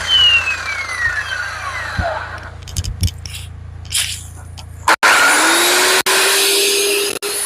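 Concrete floor saw winding down, its whine falling in pitch over about two seconds, with a few knocks in the quieter stretch that follows. After an abrupt cut the saw is running again, loud, its whine rising briefly and then holding steady.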